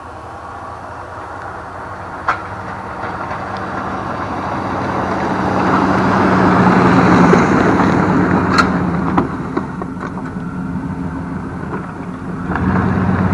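Truck engine running steadily under a rushing noise that builds to a peak about halfway through and then eases off, with a few sharp clicks along the way.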